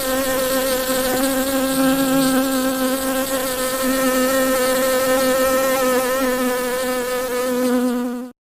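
Bees buzzing in a steady, pitched drone that cuts off abruptly near the end.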